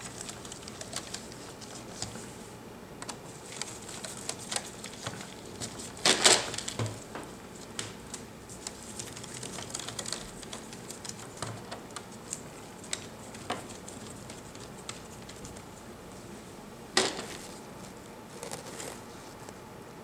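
Small clicks and light taps of a hex screwdriver driving screws into the plastic back cover of a Dell XPS 18 tablet, with hands handling the case; a louder knock about six seconds in and another about seventeen seconds in.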